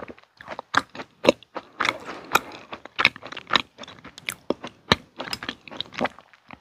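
A person chewing food with the mouth closed: irregular wet clicks and smacks, a few each second.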